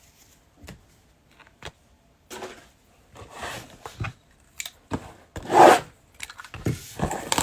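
Trading cards and their packaging handled by hand: short rubs, scrapes and clicks, with one louder swish about five and a half seconds in.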